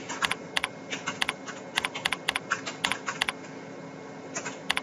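Computer keyboard being typed on: a quick, uneven run of key clicks, pausing about three seconds in, then two more clicks near the end.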